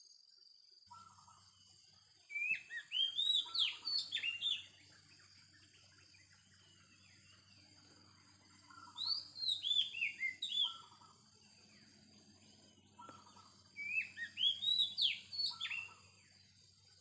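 Oriental magpie-robin singing: three bursts of quick, varied whistled notes, each about two seconds long, with pauses of several seconds between them.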